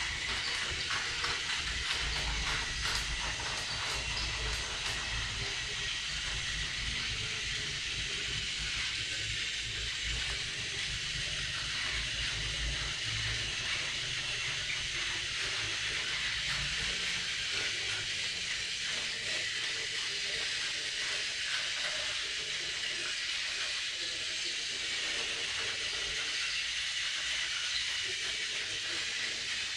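Two battery-powered Plarail toy trains running on plastic track: a steady high whirring of their small motors and gears, with the rattle of wheels on the plastic rails. A low rumble runs under it through the first half.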